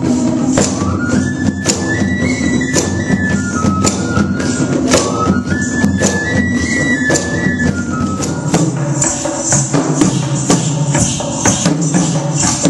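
Indian folk music ensemble playing: a high wind instrument carries a stepping melody for most of the first two-thirds, over steady jingling and struck percussion that keeps going after the melody stops.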